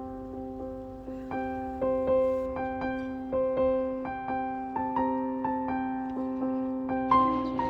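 Soft keyboard background music: a slow piano-like melody of single struck notes, about two a second, each fading away, over a held chord.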